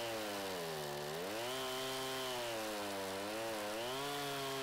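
Stihl two-stroke chainsaw with a 20-inch bar cutting down through a box elder burl. The engine note sags under load about a second in and again around three seconds, picking back up each time.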